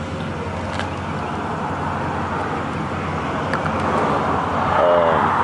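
Road traffic going past: a steady rush of passing vehicles that slowly swells near the end.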